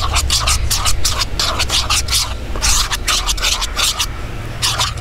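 A utensil stirring thick fluffy slime in a plastic bowl, scraping in quick strokes about four a second, with a short pause about halfway. The liquid starch activator is being mixed in as the slime comes together.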